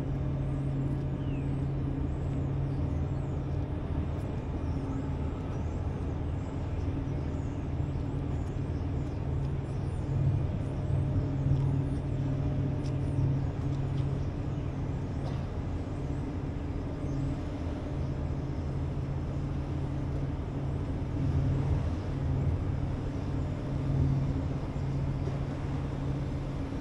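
Steady low drone of the Great Lakes freighter H. Lee White's diesel engines as the ship passes, with faint short high chirps over it.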